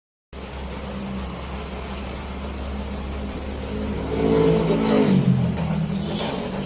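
Car engine running steadily, then revved about four seconds in, its pitch falling back as the revs drop.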